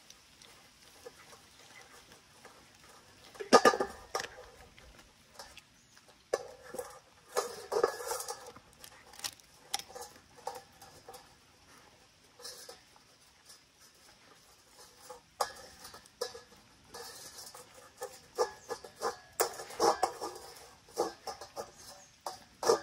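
German Shepherd puppy eating chicken from a stainless steel bowl: irregular bursts of chewing and licking with sharp clicks, separated by quieter pauses. The loudest burst comes about three and a half seconds in.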